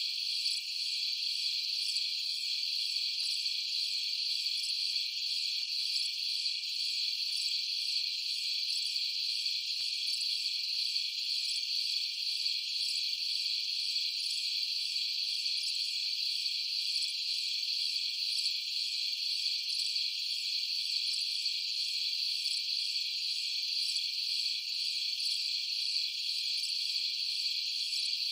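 Steady, high-pitched insect chorus with fine rapid pulsing and nothing low underneath, unchanging throughout.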